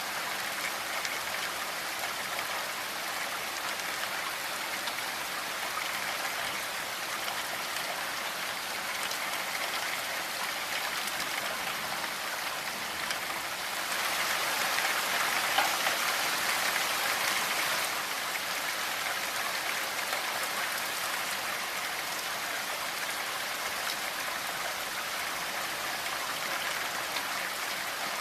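Steady rainfall, a constant hiss of drops, growing a little heavier for a few seconds about halfway through.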